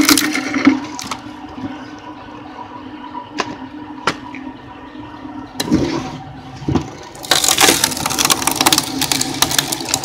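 Motor-driven screw cone log splitter running with a steady hum, broken by sharp cracks of wood. About seven seconds in, the threaded cone bores into a round and a long stretch of dense crackling and splintering follows as the wood is forced apart.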